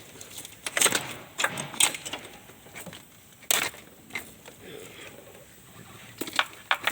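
Scattered sharp clicks and knocks from the new positive battery cable and its terminal being handled and fitted at the starter, with a pair of quick clicks near the end.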